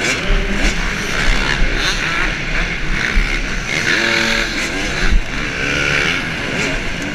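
Dirt bike engine running hard under racing throttle, its pitch rising and falling as the rider revs through the gears and turns, heard from on the bike with wind rumble on the microphone.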